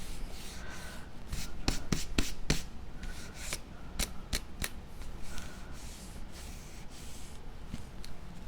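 Hands handling and rubbing folded cardstock as a glued tab is pressed into place. Sharp paper clicks come in two short runs, about a second and a half in and again about four seconds in.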